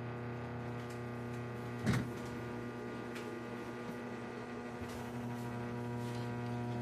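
LG Turbo Drum top-load washing machine running empty in its spin cycle, a steady electric motor hum. A single thump sounds about two seconds in.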